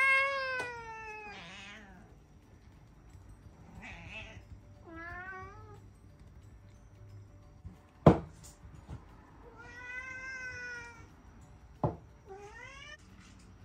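Domestic cats meowing over and over, some calls long and drawn out, others short and rising. Two sharp knocks, about eight and twelve seconds in; the first is the loudest sound.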